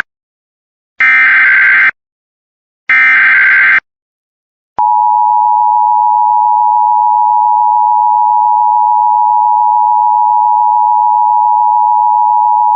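Emergency Alert System SAME data header: harsh, buzzy digital screeches about a second long, repeated with a second's pause. About five seconds in, the two-tone EAS attention signal starts and holds steady for about eight seconds, announcing the alert message.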